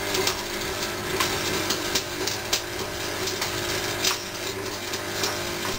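Electric arc welder welding steel bicycle frame tubes: a steady crackling sizzle broken by irregular sharper pops, over a steady low hum.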